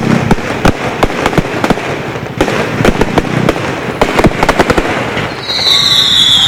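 Fireworks going off: a rapid string of bangs and crackles, then about five seconds in a cluster of high whistles that slide down in pitch.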